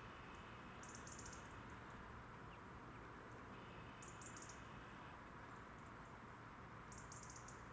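Eurasian nuthatch calling faintly, three short bursts of rapid high-pitched notes about three seconds apart.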